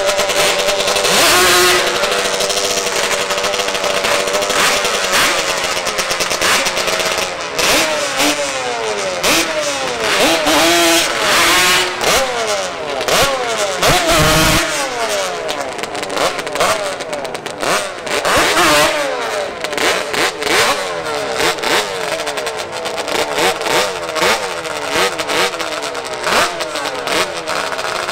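Drag-racing ATV and trike engines revving repeatedly, the pitch sweeping up and down in quick throttle blips from more than one engine at once. A short low thump comes about halfway through.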